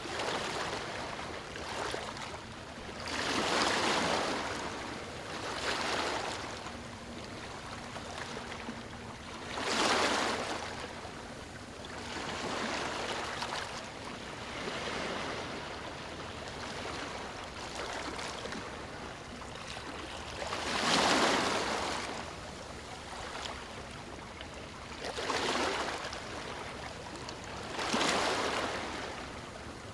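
Ocean waves breaking on a beach: a steady wash of surf with a louder rush of breaking water every few seconds, the loudest about two-thirds of the way through.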